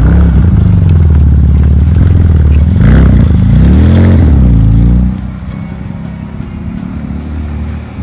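Porsche 997 Turbo's twin-turbo flat-six running loud through a Capristo valved exhaust, its pitch rising and falling as the revs climb and drop. It settles quieter about five seconds in.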